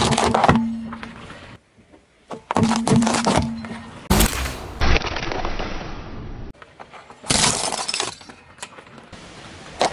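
A car tyre rolling over and crushing carrots, then parsnips, then a bundle of thin sticks. The result is a run of crunching, cracking and snapping strokes, in short takes cut together, with the sharpest, loudest crack a little past four seconds in.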